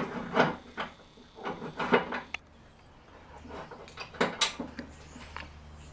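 Irregular clicks and knocks of metal parts being handled as the wheels are refitted to a lawn tractor's cutting deck, about a dozen sharp taps spread over several seconds.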